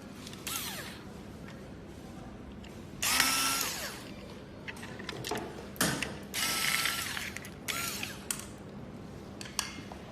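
A tool working fasteners in four short bursts, each with a brief whine that rises, holds and falls, while the motor or rear fender is removed from an electric scooter.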